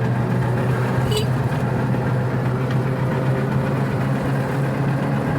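Steady motor-vehicle engine hum with road noise, one low drone holding level throughout.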